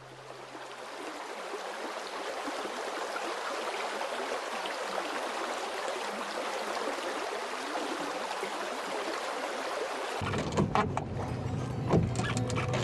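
Steady rush of river water. About ten seconds in, a low hum comes in and a few sharp knocks sound.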